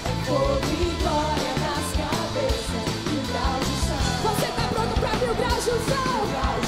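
Live worship band playing with several singers: lead vocals and backing voices over drums, bass and guitar in a steady rock beat.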